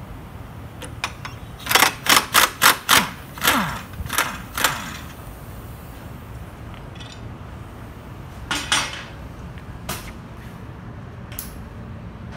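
Cordless impact driver working a bolt at a motorcycle's handlebar mount, run in about seven short rattling bursts in quick succession, its motor winding down in pitch after some of them. Another burst comes a few seconds later, followed by a couple of single clicks.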